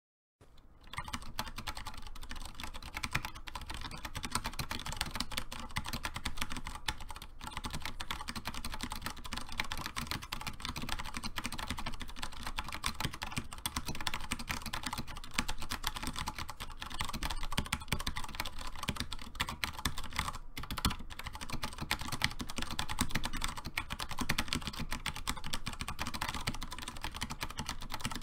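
Continuous fast typing on a KUL ES-87 87-key mechanical keyboard with Cherry MX Clear tactile switches: a dense stream of keystrokes starting about half a second in, with brief pauses about a quarter of the way through and again past two-thirds.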